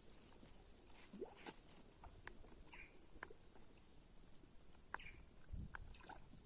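Near silence: faint outdoor ambience with scattered small clicks and knocks and a few brief high chirps, over a faint steady high hiss.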